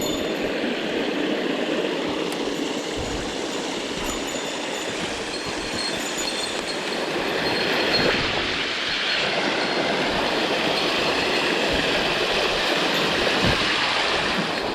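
Mountain stream water rushing, a steady dense noise.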